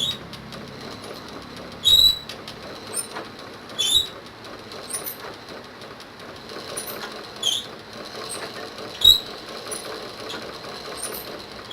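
Pedal (treadle) sewing machine turned over slowly by foot, unthreaded with the presser foot raised, its mechanism clacking sharply about once every one and a half to two seconds.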